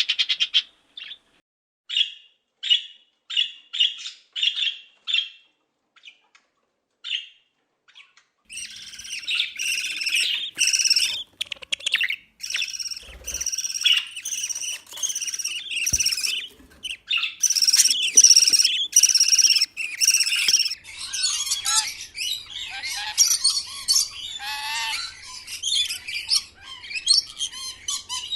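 Budgerigar chirps give way about two seconds in to a single parrot giving short calls, roughly one every half second with gaps. From about eight seconds in, parrot chicks call loudly in dense back-to-back bursts. From about twenty-one seconds in, a flock of parrots chatters continuously.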